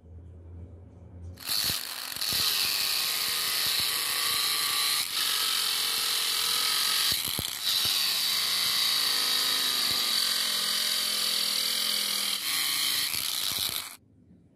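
Angle grinder with a thin cutting disc running and cutting through a PVC arm. It starts about a second and a half in and stops shortly before the end, with two brief dips in level around five and seven and a half seconds.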